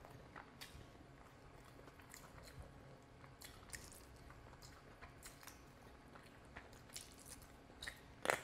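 Faint close-miked eating sounds: wet chewing and small crunching clicks of rice and curry eaten by hand, with one louder sharp bite near the end as a curried chicken drumstick is bitten into.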